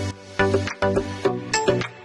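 Background music: a rhythmic tune of short pitched notes struck every few tenths of a second over a steady beat.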